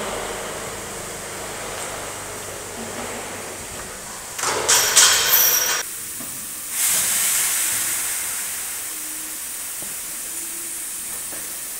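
Hissing from slaughterhouse carcass-processing equipment over a steady background hiss: a loud burst about four and a half seconds in that cuts off abruptly after about a second and a half, then another hiss near seven seconds that fades slowly.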